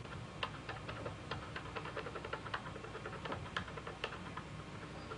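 Short ticking scrapes of a small hand tool working a tiny ivory carving, uneven, about three or four strokes a second.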